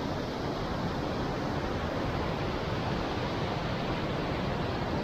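Steady rush of river water tumbling over rocky falls and rapids.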